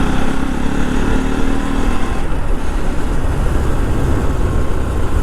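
Motorcycle engine running as the bike is ridden along, with loud wind rush on the microphone over a steady low engine note.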